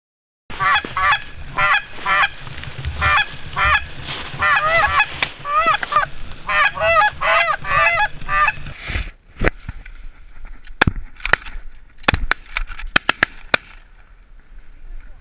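Geese honking, many calls overlapping. About nine seconds in a rapid string of sharp shotgun blasts follows, several shots in quick succession over about five seconds.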